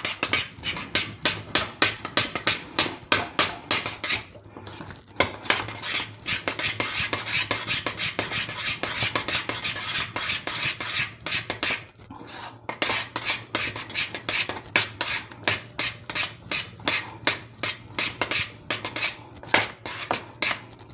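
Metal spoon stirring thick pastry cream in a stainless steel saucepan, clinking and scraping against the sides and base of the pan about three times a second, with a couple of brief pauses.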